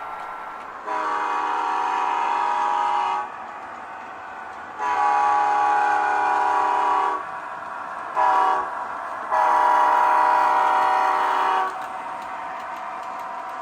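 HO-scale Athearn Genesis SD70ACe model diesel's sound decoder sounding its multi-note air horn through the model's speaker in the grade-crossing pattern: two long blasts, a short one, then a long one. Between the blasts the decoder's steady diesel running sound continues.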